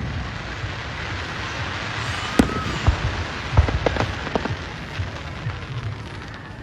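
Fireworks display: a string of sharp bangs, most of them clustered from about two to four and a half seconds in.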